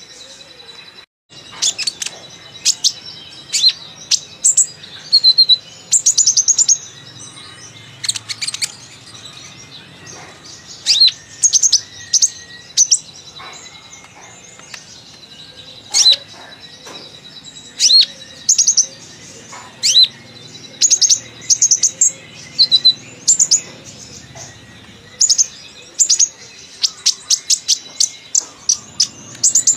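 Kolibri ninja sunbird singing chattily: a busy string of short, high chirps and quick trills coming in clusters every second or so, its song laced with mimicked phrases. A faint steady high whine runs underneath.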